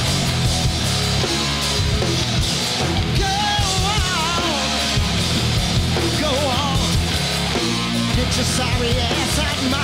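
Live rock band playing loud, with distorted guitar, bass and drums, and a wavering melodic line over the top in the middle.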